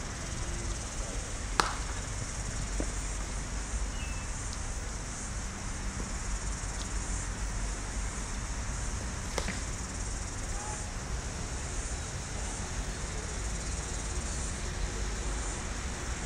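Sharp crack of a cricket bat striking a ball in the practice nets about a second and a half in, then a fainter one about nine seconds in, over a steady outdoor hiss.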